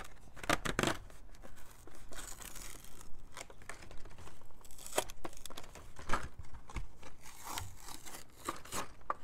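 Cardboard backing being peeled and torn off a plastic blister pack: irregular ripping of the card, mixed with crinkling of the plastic tray.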